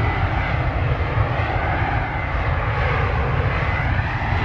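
Airbus A320 jet engines, a loud, steady rushing noise, as the airliner rolls along the runway past the listener.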